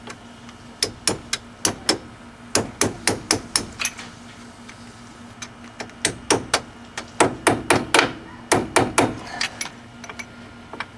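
Hammer striking a punch in quick bursts of sharp metal blows, about three a second, knocking the old wheel hub out of a 2001 Chevy Cavalier's steering knuckle.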